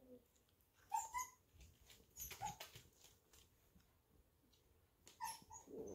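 Golden retriever puppies giving a few brief, high whimpers: about a second in, again a little after two seconds, and near the end. Faint clicks fall between them in an otherwise quiet stretch.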